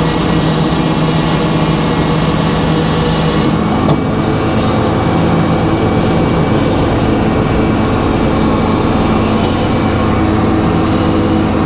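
Circular sawmill running: its engine-driven drive and spinning blade make a steady, loud drone, and the pitch pattern changes about four seconds in, as it would when the blade takes up the load of a cut.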